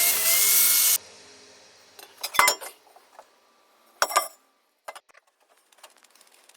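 Background music cuts off about a second in, followed by short clinks and knocks from tools being handled at a wheel repair: two brief clusters about two seconds apart, then a few faint ticks.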